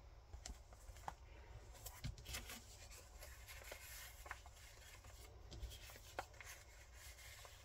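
Faint rustling and light taps of paper being handled: the pages, tags and cards of a handmade paper junk journal shifting under the fingers, over a low steady room hum.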